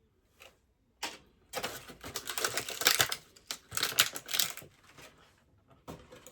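Hard plastic action-figure parts and accessories being handled, with a rapid run of clicks and clatter for about three seconds in the middle and a few single clicks around it.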